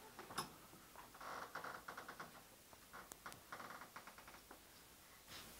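A door being opened: a sharp latch click, then faint runs of rapid creaking ticks.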